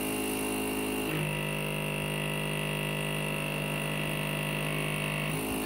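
Delta robot's stepper motors, driven by DRV8825 drivers under GRBL, whining as the arms move: a steady whine of several tones that shifts in pitch about a second in and again near the end.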